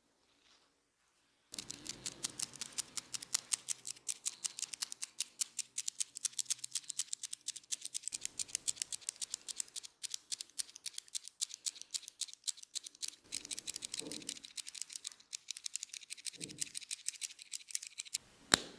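A fast, steady run of crisp clicks and snaps, about ten a second, from hands and tools working at the head, with one louder sharp crack near the end.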